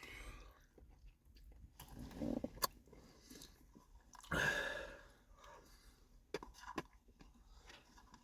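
A man quietly eating McDonald's McFlurry ice cream up close to the microphone: soft chewing and wet mouth sounds, with scattered small clicks.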